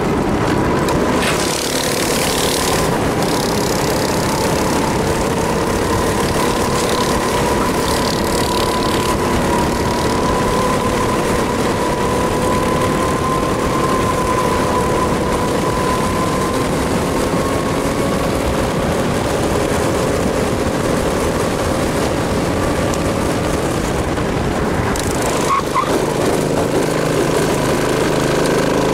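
A go-kart's 270 cc four-stroke engine running under load, heard on board, its note drifting slightly up and down as the kart laps the track. Wind rushes over the microphone in gusts, strongest about a second in. Near the end the engine settles to a lower, steadier note.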